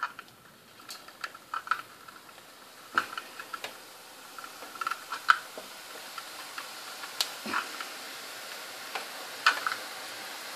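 Irregular metallic clicks from a hand-held sev press as its lever is squeezed to push gram-flour dough into hot oil, with a steady sizzle of the dough strands deep-frying that builds from about four seconds in.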